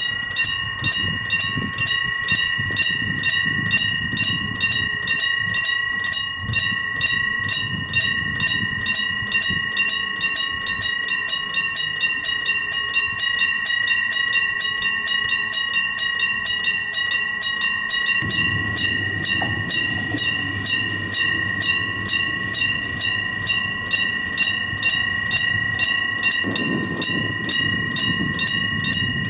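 Japanese level-crossing electric bell (trembler-type 電鈴) ringing continuously with a steady metallic tone that pulses about twice a second. A low train rumble sits beneath it, heavier in the second half.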